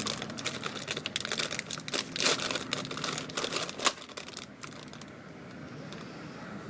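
Plastic chip bag crinkling and crackling as it is handled and opened, stopping about four and a half seconds in.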